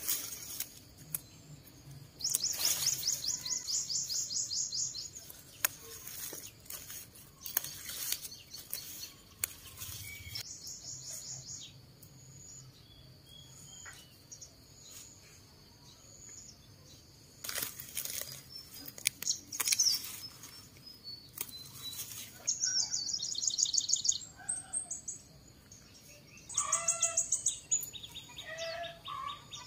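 Small birds chirping, with several fast, high trills and runs of chirps. Sharp snaps and rustling of leafy greens being picked by hand are heard throughout.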